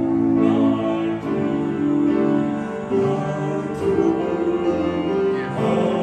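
Male vocal quartet singing a gospel song in close harmony through handheld microphones, with piano accompaniment. The voices hold long chords that shift every second or so.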